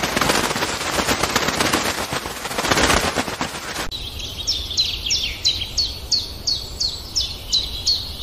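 A loud rushing noise full of fine crackles that cuts off abruptly about four seconds in. A bird then calls in a fast run of high chirps, each sliding down in pitch, about three a second.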